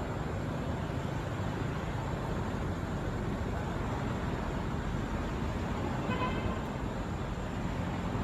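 Steady vehicle noise with a short horn toot about six seconds in.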